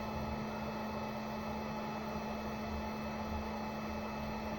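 Steady electrical or fan-like hum with an even hiss and a constant low tone, unchanging throughout.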